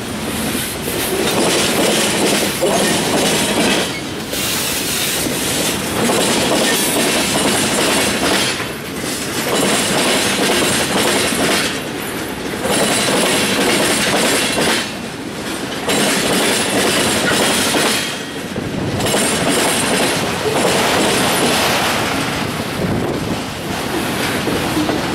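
Mixed freight train's cars rolling past close by, steel wheels running on the rails, the sound dipping and swelling every few seconds as the cars go by.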